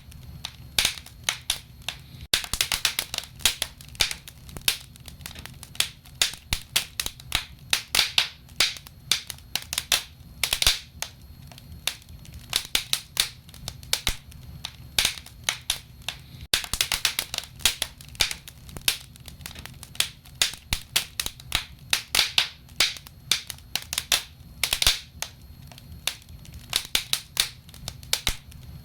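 Wood fire crackling, with dense irregular snaps and pops over a low steady rumble of burning.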